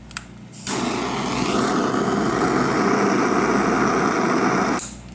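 Handheld gas torch burning with a steady rushing flame, lit a little under a second in and shut off abruptly near the end.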